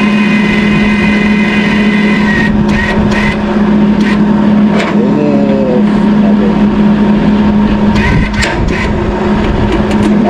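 A steady, loud engine-like drone with a constant hum, broken by a few short sharp crackles about a quarter of the way in and again near the end.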